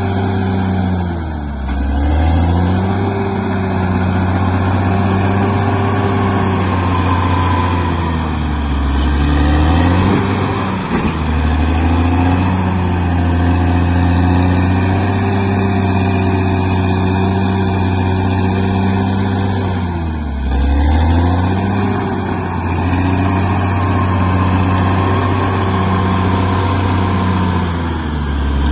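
Bulldozer's diesel engine running steadily. About four times its pitch drops briefly and then climbs back.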